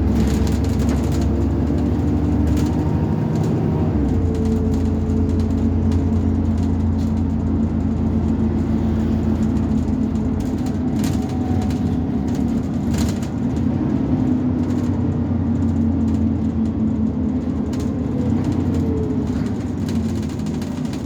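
Alexander Dennis Enviro400 double-decker bus engine running under way, a steady drone whose pitch shifts about four seconds in, as with a gear change. A few short rattles or clicks sound over it later on.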